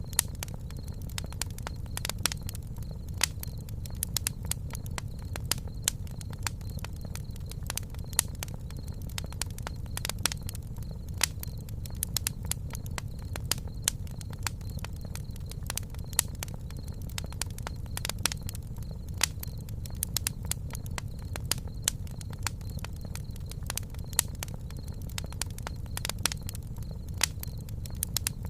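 Campfire crackling: irregular sharp pops and snaps, several a second, over a steady low rumble.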